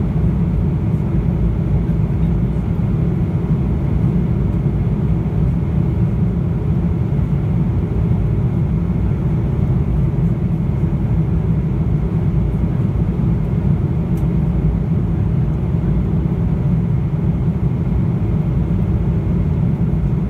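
Boeing 777-300ER cabin noise in cruise, heard from a window seat by the wing: a steady, low rumble of the GE90-115B engines and of air rushing past the fuselage, unchanging throughout.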